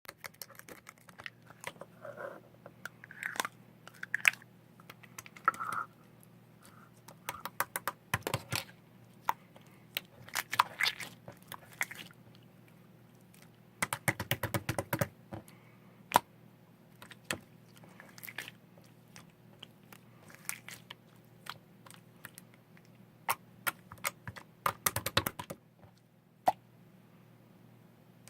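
Irregular close-up crunching and sharp clicking in a small room, coming in clusters with short pauses between them, over a faint steady hum.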